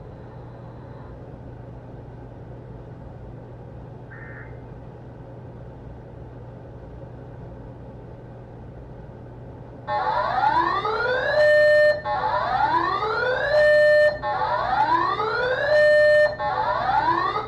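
Faint radio hiss with a low hum, then, about ten seconds in, a loud electronic whooping alarm begins: a tone that sweeps upward for about a second and a half, holds briefly and breaks off, repeating about every two seconds, three and a half times.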